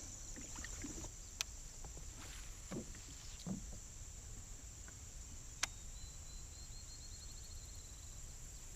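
Quiet lakeside ambience: a steady high insect drone over a low rumble, broken by a few sharp clicks and two soft knocks, with a short rapid ticking trill about two-thirds of the way in.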